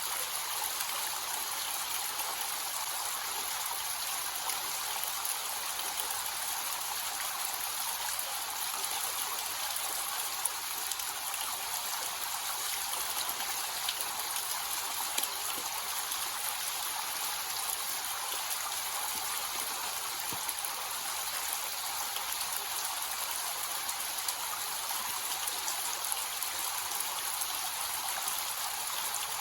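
Small waterfall with a gentle, low flow: water falling and splashing in a steady hiss, with light drip-like patters over it.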